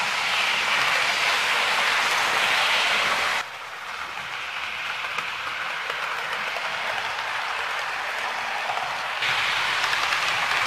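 Hornby OO gauge Class 31 model locomotive running at top speed with its carriages: a steady whirr of the motor and wheels on the track. The sound drops abruptly about three and a half seconds in and comes back up abruptly about nine seconds in.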